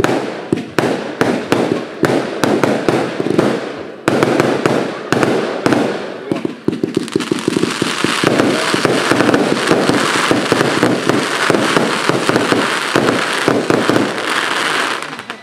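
Fireworks going off close by: a dense, rapid string of bangs and cracks that thickens into continuous crackling from about eight seconds in.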